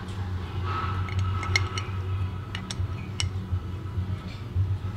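Small metal parts of a sailing block, its axle pins and side plates, clicking and clinking together a few times as they are handled and fitted by hand, over a steady low hum.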